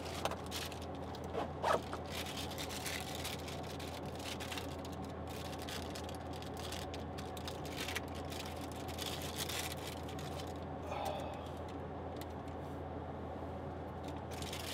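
Camper air conditioner running off a battery through an inverter, a steady low hum, with rustling and clicking as small items are handled close by.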